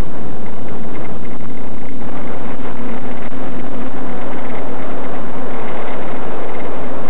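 Reptile APHID X450 quadcopter's DJI E300 2212 motors and 9x4 propellers droning steadily in flight: a low hum under a loud, rough rush of wind and hiss.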